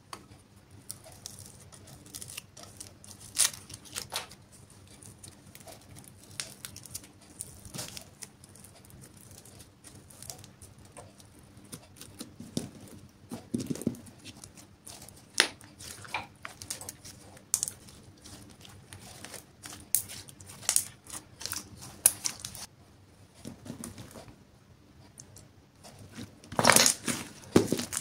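Hands kneading, stretching and squishing clear slime mixed with lipstick and glitter: irregular sticky pops, clicks and crackles, denser and louder near the end.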